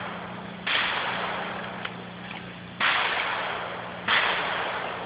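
Three pistol shots, the first a little under a second in, then near three seconds and just after four. Each is a sudden loud crack that fades away slowly.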